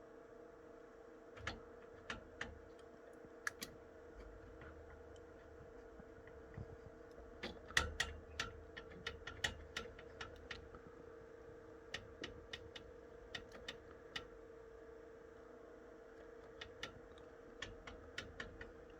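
Scattered light clicks and taps of small plastic and metal parts as a graphics card is worked out of its motherboard slot. They come in several short clusters over a faint steady hum.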